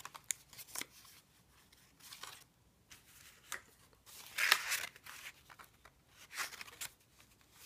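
Paper rustling and swishing as the thick, layered card and paper pages of a handmade junk journal are handled and turned, in a series of short bursts, the loudest about four and a half seconds in.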